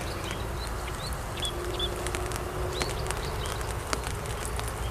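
Small birds calling outdoors, short hooked chirps repeated every second or so, over scattered light ticks. An insect buzzes steadily for about a second and a half in the middle.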